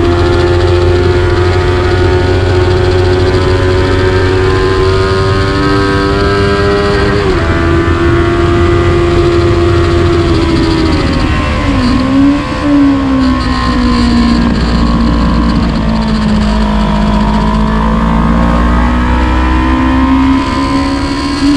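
Motorcycle engine running hard at speed, heard from on board with rushing noise over it. The engine note holds steady, drops at about seven seconds in, dips and recovers sharply at about twelve seconds, then sags slowly and climbs again near the end.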